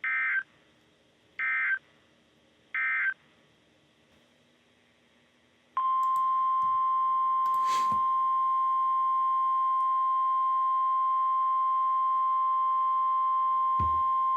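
Three short digital SAME data bursts of the Emergency Alert System, about a second and a half apart. Then, about six seconds in, the NOAA Weather Radio 1050 Hz warning alarm tone sounds as one steady, loud tone for about nine seconds, with a brief crackle near its start.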